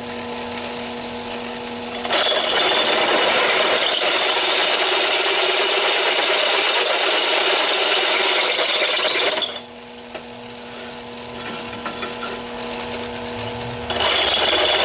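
Drill press running with a step bit boring into a steel square tube. The motor hums on its own at first; about two seconds in a loud cutting noise starts as the bit is fed into the steel, stops around nine and a half seconds, and starts again near the end.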